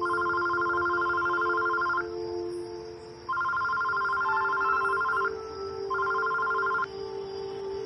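Mobile phone ringing: a fast-warbling two-tone ring in three bursts, the first two about two seconds long and the last shorter, with pauses between them, over soft sustained background music.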